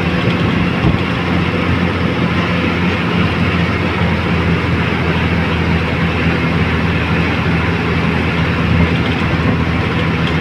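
Bus engine running with tyre and road noise, heard from inside the passenger cabin: a steady low drone.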